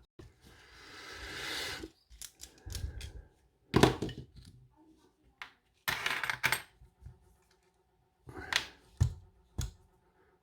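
Metal clicks, knocks and scraping as a padlock is worked on with a large screwdriver. A scrape swells up near the start, then come several sharp knocks, the loudest just under four seconds in.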